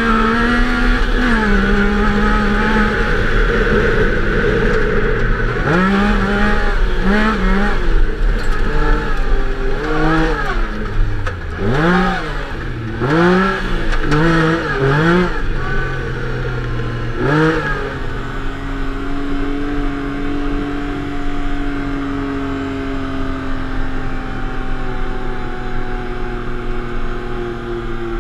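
Yamaha YXZ1000R's three-cylinder engine heard from the cab, revving up and down in repeated bursts of throttle for the first two-thirds. It then settles into a steady drone at lower revs that slowly sinks in pitch.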